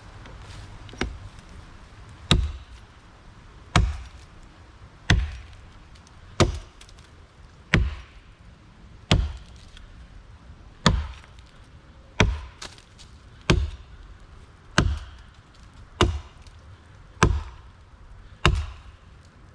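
Axe chopping into a small, hollow tree trunk to cut the felling notch: short, choked-up swings landing about once every second and a quarter, each a sharp woody chop.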